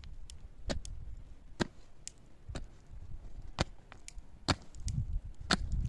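A pickaxe striking hard, stony ground while digging a pit, about one strike a second, each a sharp thud. Lighter clicks of loosened earth and stones come between the blows.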